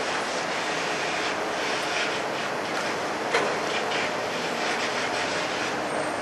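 Steady outdoor background noise with one short, sharp knock a little over three seconds in.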